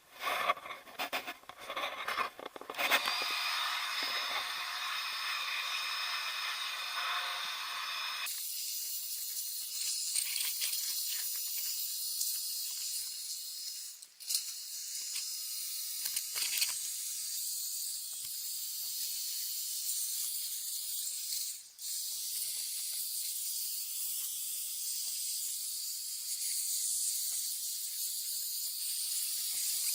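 Small handheld air blower blowing dust out of condenser coils: a steady rush of air, with a few knocks and rattles from handling at the start. About eight seconds in, the sound turns into a thinner, higher hiss.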